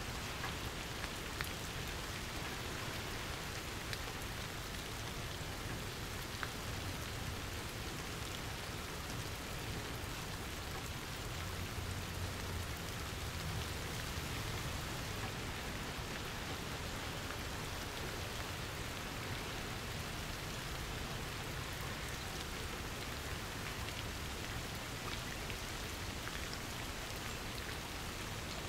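Steady rainfall, a dense, even hiss of drops with an occasional single drop ticking out louder.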